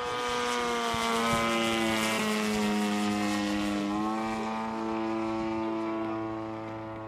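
DLE-55 single-cylinder two-stroke petrol engine of a large RC aerobatic model plane, running steadily in flight with the propeller buzzing. Its pitch drifts and shifts slightly, about four seconds in.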